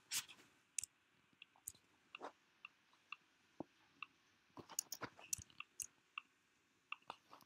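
Faint, irregular clicking of a computer mouse and keyboard, with a quick run of clicks a little past halfway.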